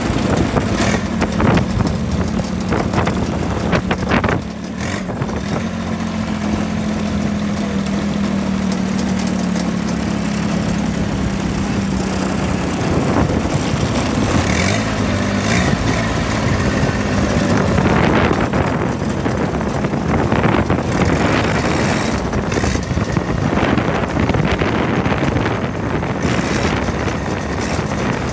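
26 hp diesel engine of a Ford lawn mower running steadily while the mower is driven. Its engine note holds steady for the first part, then changes about halfway through, when the sound grows noisier with scattered rattles.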